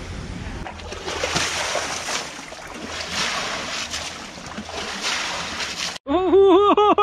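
Water splashing and sloshing in a shallow stream, in uneven surges. About six seconds in it cuts to a man shouting the same short word over and over, fast.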